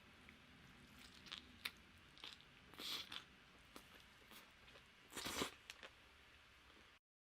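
Close-miked eating: crisp crunching bites and chewing, with two louder crunches about three and five seconds in. The sound stops abruptly near the end.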